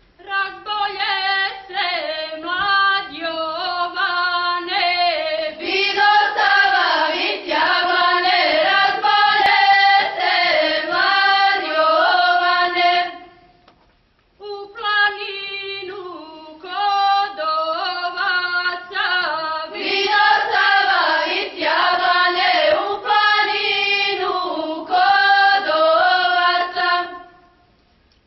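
A group of folk singers sings a traditional Montenegrin song from the Kolašin area, unaccompanied. It comes in two long phrases with a short breath pause between them, and each phrase grows louder about six seconds in.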